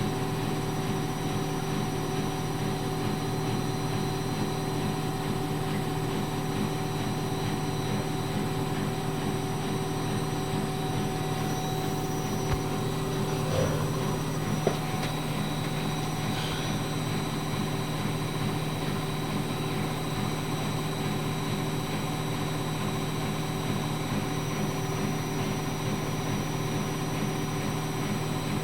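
Washing machine running with a steady motor hum made of several fixed tones. A couple of short clicks come about halfway through, where the hum's pitch pattern shifts slightly.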